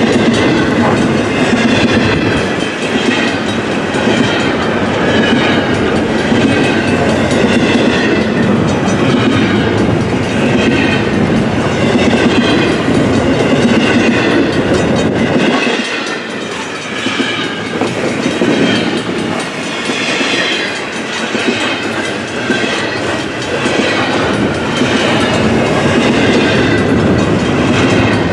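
Double-stack intermodal freight cars rolling past in a steady, loud rush of wheel and rail noise. The deep rumble thins out for several seconds about halfway through, then returns.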